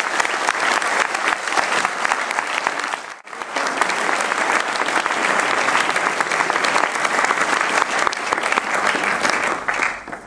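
Audience applauding, a dense steady clapping that breaks off for a moment about three seconds in and stops abruptly near the end.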